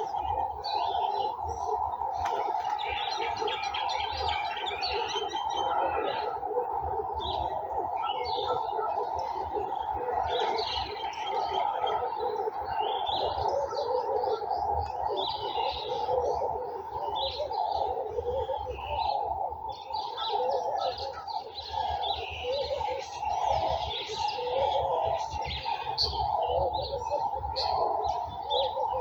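Garden birds chirping and singing together in a steady chorus, many short calls overlapping without a break.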